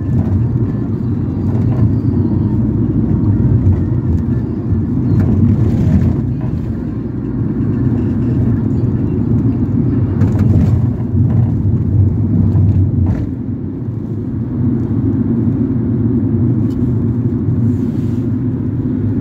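Steady low engine and road rumble of a Ford Transit minibus on the move, heard from inside its cabin, with a few faint rattles and clicks.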